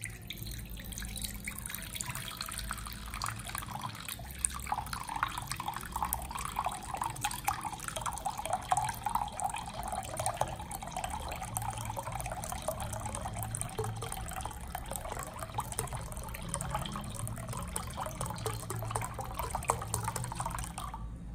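Milk pouring in a steady stream from a carton spout into a glass measuring jug, splashing continuously onto sugar and agar powder as the jug fills.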